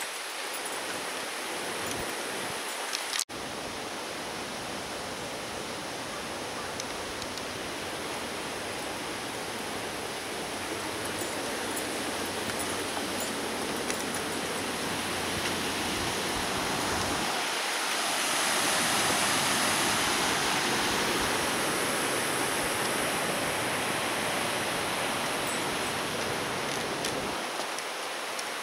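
Steady rush of falling water from a waterfall, swelling louder for a few seconds about two-thirds of the way through, with a momentary gap about three seconds in.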